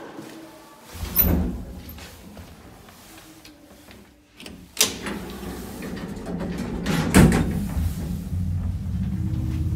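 Old MLZ passenger lift: a thump about a second in, a click near the middle as the floor button is pressed, then a loud clunk as the car doors shut. After that comes a steady low rumble building as the 4AN-160 hoist motor starts and the car begins to move.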